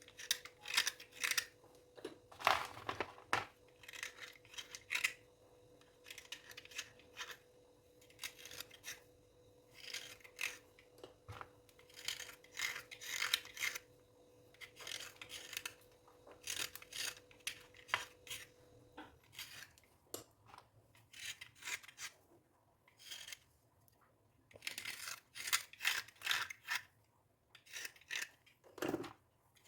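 Dry scraping and scrubbing strokes in short, irregular bursts, with pauses between them. A faint steady hum underlies the strokes and stops about two-thirds of the way through.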